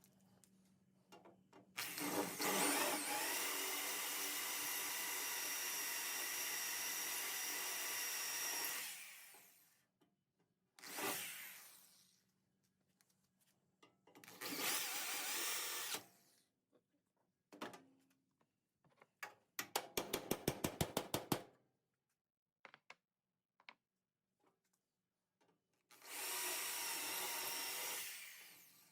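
Power drill drilling out spot welds in the sheet steel of an Early Ford Bronco's inner rocker brace, run in bursts: one long steady run of several seconds, then shorter runs. A quick train of about seven or eight clicks a second comes a little past the middle.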